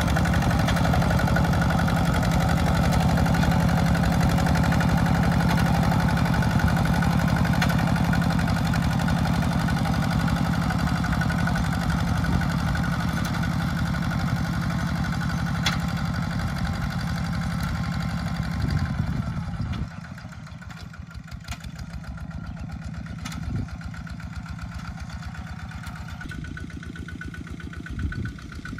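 Single-cylinder diesel engine of a two-wheel walking tractor running steadily under load as it pulls a plough through the soil. The sound drops clearly quieter about twenty seconds in.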